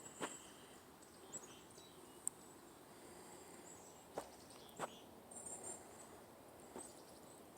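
Faint, scattered footsteps on a trail, a few knocks several seconds apart, with brief clusters of very high, thin bird chirps. Otherwise near silence: outdoor quiet.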